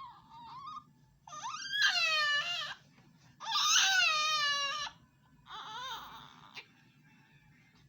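Baby crying: a run of wailing cries, the two longest and loudest in the middle, each sliding down in pitch at its end, with a weaker cry after them and quiet near the end.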